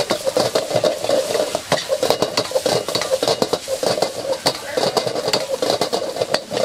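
A metal spatula stirring and scraping fried rice around a hot wok, about two to three scraping strokes a second with sharp clinks of metal on metal, over a steady sizzle of frying.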